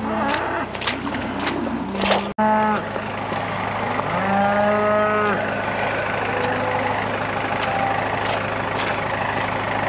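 Cattle mooing, with a short moo a little after two seconds and one long moo about four seconds in, over the steady hum of a farm tractor's engine running at idle.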